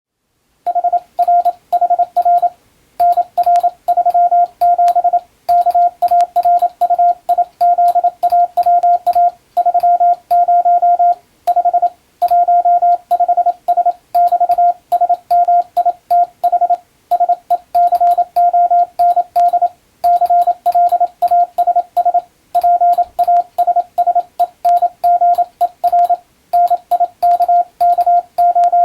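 International Morse code (CW) sent on an electronic keyer: a single steady mid-pitched beep keyed on and off in quick, evenly timed dots and dashes, with short pauses between letters and words. It starts about a second in.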